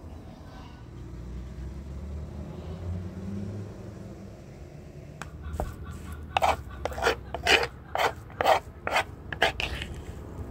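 About a dozen quick rasping, scraping strokes, roughly three a second, starting about six seconds in over a low steady rumble.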